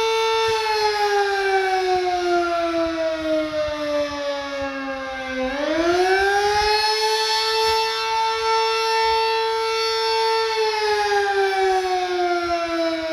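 Sterling Model M outdoor warning siren sounding its test: a loud wail that slides slowly down for about five seconds, swings quickly back up to its top pitch, holds there for a few seconds, then slides down again near the end.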